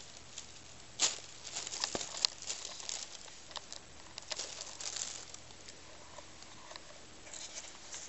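Thin plastic shopping bag crinkling and rustling in irregular bursts as a cat moves and plays with a toy inside it, with a sharp crackle about a second in and a quieter spell after the middle.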